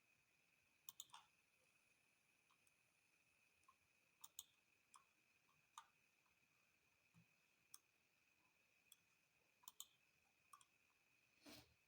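Near silence with faint, irregular clicks scattered throughout, over a faint steady high-pitched whine.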